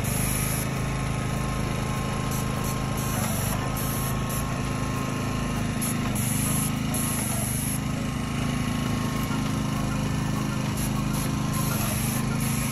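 Airless paint sprayer's pump running steadily, with short hissing bursts several times as the spray gun is triggered on and off, spraying paint through stencils.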